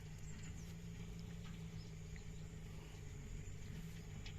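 Quiet outdoor ambience by the water: a steady high-pitched insect drone over a low hum, with a few faint short chirps.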